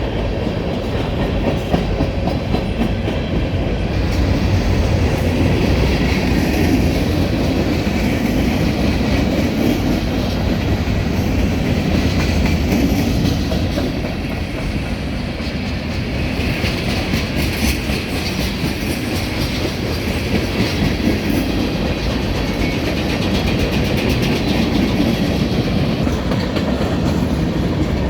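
CSX freight train's cars rolling past: a steady rumble of steel wheels on the rails with clickety-clack over the rail joints.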